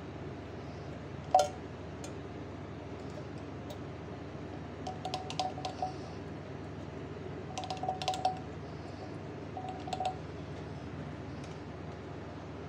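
A sharp click about a second in, then three short runs of light clinks and taps, like small hard objects being handled, over a steady background noise.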